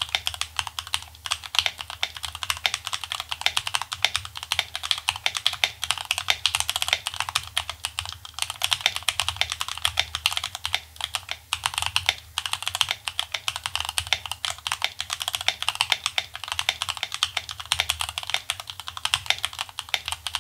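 Rapid, continuous typing on a Feker Machinic 02 mechanical keyboard with Gateron Milky Yellow Pro linear switches and POM keycaps. The board is modded with PE foam and tape, and its stabilisers are lubed with Super Lube.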